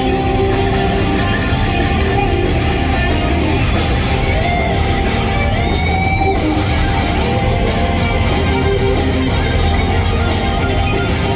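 Live rock band playing an instrumental passage: electric guitar lead with sliding, bent notes over a steady bass and drums.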